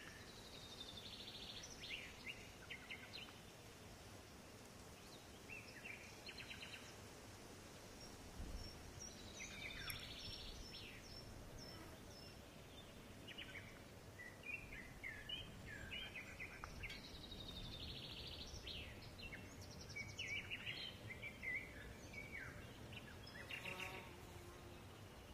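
Faint outdoor ambience of birds chirping and trilling in short bursts over a steady low hiss.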